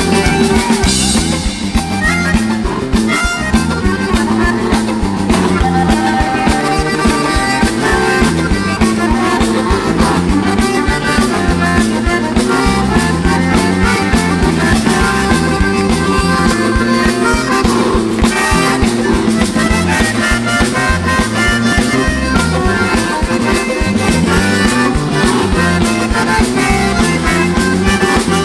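Live rock band playing an instrumental passage led by a bayan (Russian button accordion), its reedy melody over bass guitar, electric guitar and a steady drum beat.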